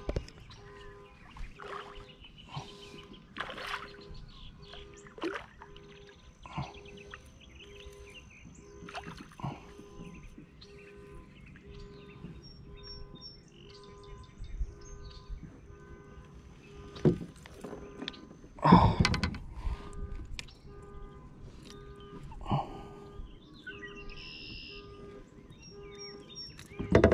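A largemouth bass being fought and landed from a plastic kayak: scattered knocks and splashes of the fish, rod and hull, with the loudest clatter about two-thirds of the way through. Birds chirp faintly.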